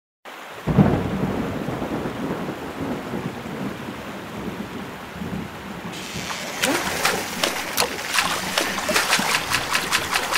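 Cartoon storm sound effects: a sudden thunderclap about a second in that rumbles on, then from about six seconds in rain with many sharp drops hitting.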